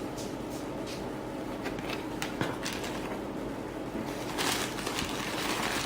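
Laminated planner pieces being handled: faint rustling and light clicks of stiff plastic-coated card, with one sharper click about two seconds in.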